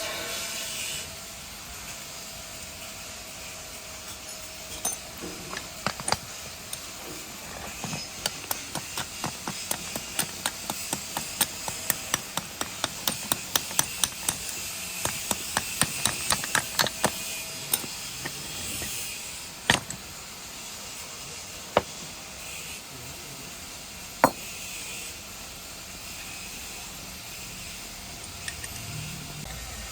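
Light hammer taps on metal, about two a second for some ten seconds, followed by three separate louder strikes.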